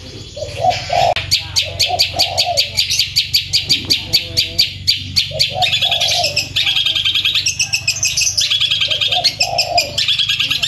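Long-tailed shrike (cendet) singing a loud, rapid rolling song: long fast runs of sharp repeated high notes, about eight a second, broken every few seconds by short groups of lower notes.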